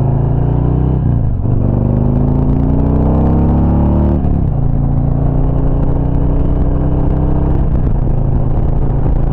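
Harley-Davidson V-twin motorcycle engine accelerating through the gears. Its pitch climbs, drops at a shift about a second and a half in, climbs again, drops at a second shift about four seconds in, then holds steady at cruising speed.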